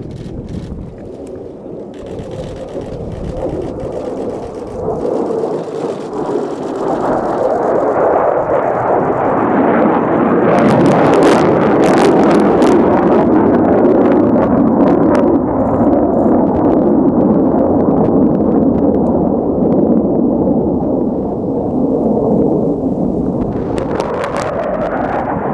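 A pair of Marine F-35B Lightning II jets flying past in formation. Their jet roar builds over several seconds and stays loud while they pass, with bouts of crackle about ten seconds in and again near the end.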